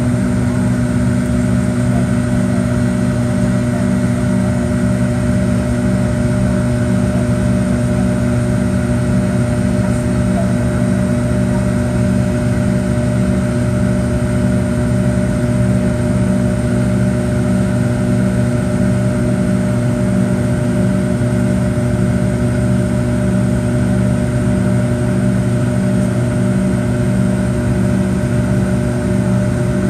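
Pratt & Whitney JT8D turbofan engines of a McDonnell Douglas MD-88 at climb power, heard inside the rear cabin. The result is a steady, loud drone of jet and air noise with several held tones and a regular throb in its low hum.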